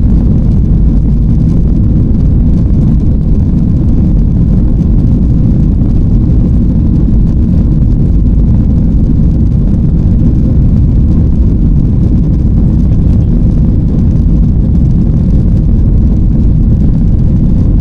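Jet airliner cabin noise: a loud, steady low rumble of engines and airflow heard from inside the passenger cabin.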